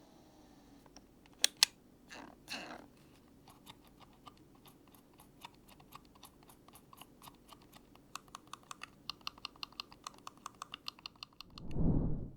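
Silent-click computer mouse buttons being pressed: two sharper clicks about a second and a half in, then a fast run of soft, muted clicks, about four a second, in the second half. A low thump comes near the end.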